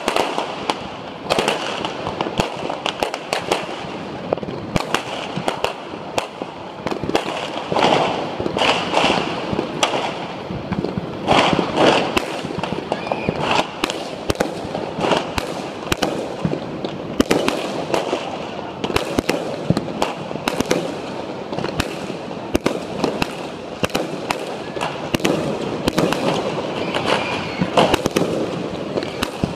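Fireworks and firecrackers going off nonstop, a dense crackle of pops with louder bangs every few seconds.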